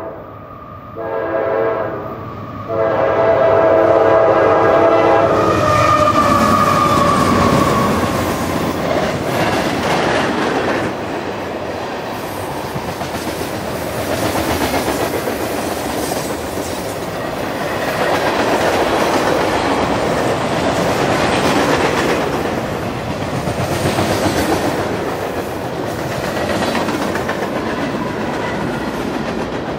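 Freight locomotive's multi-chime air horn sounding for a grade crossing: a short blast about a second in, then a long blast that ends around five seconds in. Then a loaded freight train of tank cars and rack cars rolls past with a steady rumble and the clickety-clack of wheels over rail joints.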